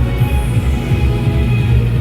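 Music with a loud, pulsing bass line and sustained tones.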